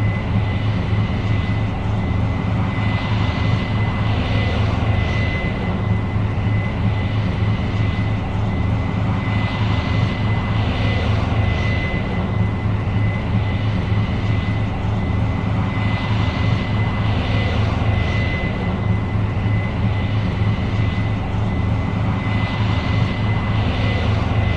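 Case IH 8230 Axial-Flow combine running steadily while harvesting soybeans: a deep diesel engine drone with a thin, steady high whine over it.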